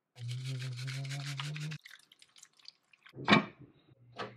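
Seasoning shaken over a beef roast in a slow cooker: a quick run of rapid rasping strokes lasting about a second and a half. After a pause comes a sharp knock about three seconds in, then two clicks as the control knob of a Hamilton Beach slow cooker is turned.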